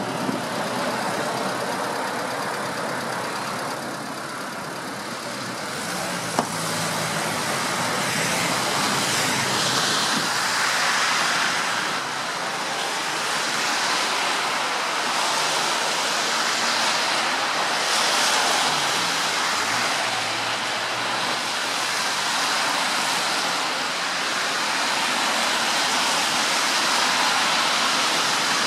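Steady city street traffic noise from vehicles on a wet, snow-covered road, rising a little after about eight seconds. There is one sharp click about six seconds in.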